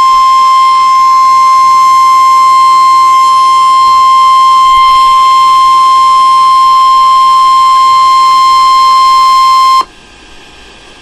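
Loud NOAA Weather Radio alert tone: one steady high beep, held for about ten seconds and cutting off suddenly near the end. It is the attention signal that comes before a severe thunderstorm warning message.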